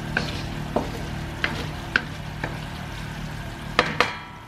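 A spatula scraping and stirring browned coconut curds in a metal pan of frying coconut oil, with a steady sizzle and scrapes about twice a second. This is coconut milk cooked down until the oil has separated and the curds have browned.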